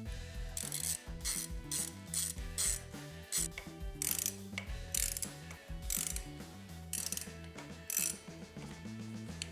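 Ratchet wrench clicking in short bursts of strokes, heard over background music with a low bass line.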